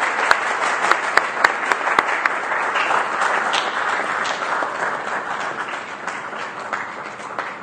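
Audience applauding, with sharp separate claps in the first couple of seconds; the applause thins and fades toward the end.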